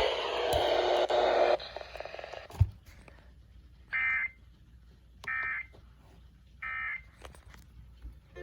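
Loud radio static that cuts off about one and a half seconds in, then a single thump. Then come three short bursts of data tones about 1.3 s apart: the SAME digital header that opens an Emergency Alert System weather-radio message.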